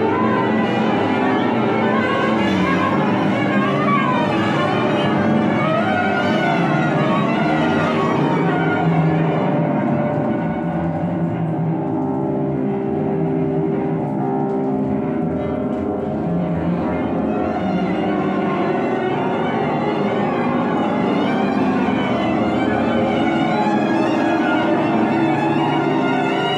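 Live chamber quintet of flute, bass clarinet, violin, cello and piano playing contemporary classical music, with sustained and gliding lines. The upper register thins out for a few seconds midway, then the full texture returns.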